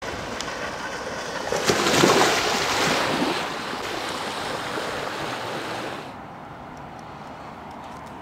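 Small waves lapping and washing against a rocky shoreline, swelling loudest about two seconds in. The wash falls to a quieter hiss about six seconds in.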